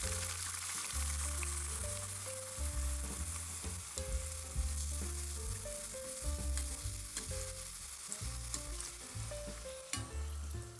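Dough frying in hot oil in a pan, a steady sizzle with scattered small crackles, over soft background music.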